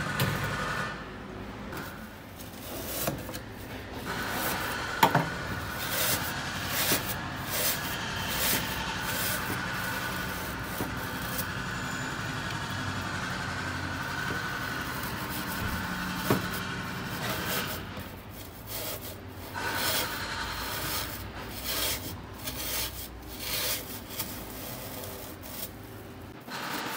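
Scraping and rubbing at a Peugeot 206 1.4 diesel's intake manifold as thick, sludgy soot deposits, softened with petrol and clogging it badly, are cleaned out: irregular rasping strokes with occasional sharp knocks.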